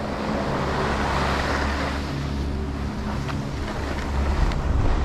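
Skis sliding and scraping over groomed, packed snow at speed, with steady wind rushing over the action camera's microphone.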